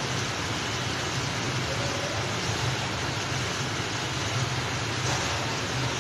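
Steady hiss with a low hum underneath, unchanging throughout: constant room background noise.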